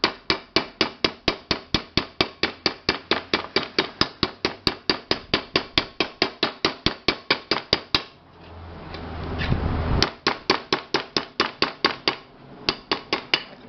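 A hammer tapping rapidly on the rim of an aluminium pressure cooker, about five blows a second, straightening the badly dented edge. The blows stop for about two seconds around eight seconds in, then resume.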